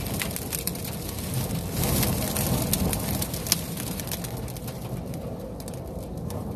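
Wind-blown dust and grit hitting a car's windshield and body in a dust storm, heard from inside the cabin: a steady rush of wind with many small ticks.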